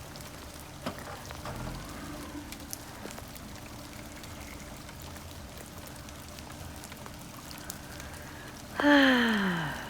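Steady rain falling, a constant hiss with scattered drop ticks. About nine seconds in, a loud pitched sound slides steeply down in pitch for about a second.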